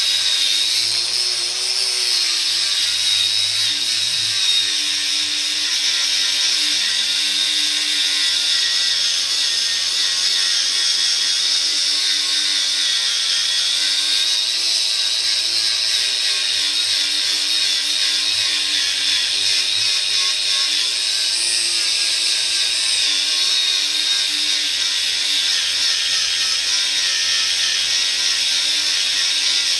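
Warrior angle grinder with a 36-grit sanding disc running without a break, grinding down weld beads on a steel truck frame. It makes a steady high whine whose pitch wavers slightly.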